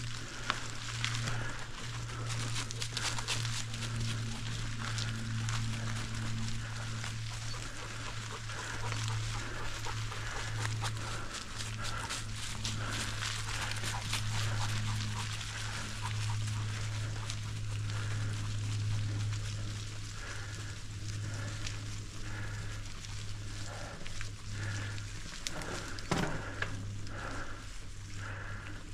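Bicycle rolling along a dirt farm trail, with a steady low hum and a constant crackle of small clicks from the tyres, and a dog panting alongside.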